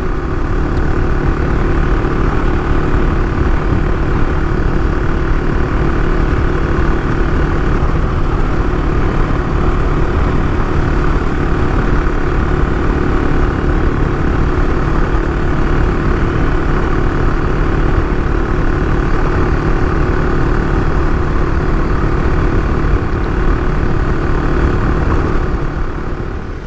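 AJP PR7's single-cylinder engine running steadily as the motorcycle is ridden at speed on hard-packed dirt, with wind noise over it; it eases off near the end.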